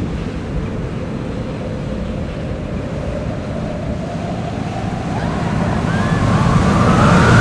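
Film sound design of an approaching meteor: a deep, rushing roar like strong wind, which grows louder over the last few seconds with a rising whine on top.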